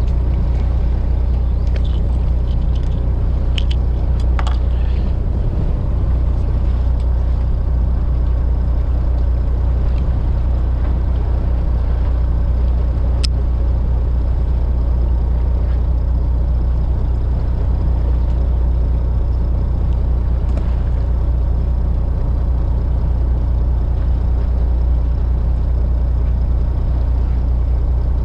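Boat engine running steadily, a constant low drone. A few light clicks sound in the first few seconds, and a single sharp tick about 13 seconds in.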